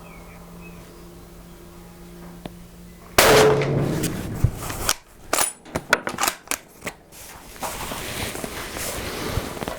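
A single shot from a Haenel Jaeger 10 Pro bolt-action hunting rifle in .30-06 about three seconds in, ringing out for over a second. It is followed by a quick run of sharp clicks and knocks.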